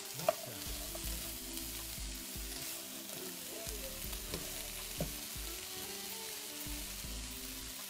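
Sliced onions, bell peppers, carrots and zucchini sizzling steadily in a nonstick frying pan while a spatula stirs them, with a sharp click about a third of a second in and a few fainter ones later.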